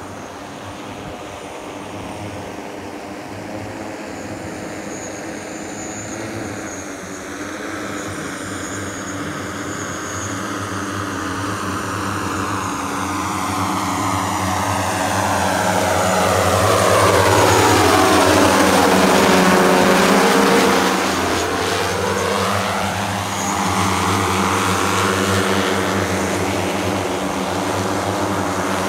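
Propellers of a multirotor manned flying platform droning steadily, growing louder as it approaches. It passes closest about two-thirds of the way through, and the tone sweeps as it goes by.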